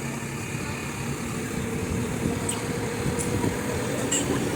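Farm tractor engine running steadily as the tractor gets under way, slowly growing louder. Three faint, short high squeaks come in the second half.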